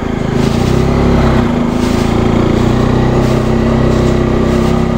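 Motorcycle engine running at a steady note as the bike rides along, its pitch dipping briefly about a second and a half in.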